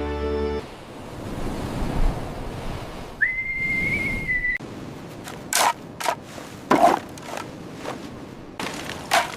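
Background music stops, leaving a steady hiss, then a single held whistle note of about a second and a half. After it come a run of sharp knocks, irregularly spaced.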